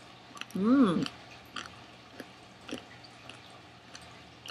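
A short hummed vocal sound, rising then falling in pitch, about a second in. It is followed by a few sharp, faint crunching clicks as a crunchy Necco candy wafer is chewed.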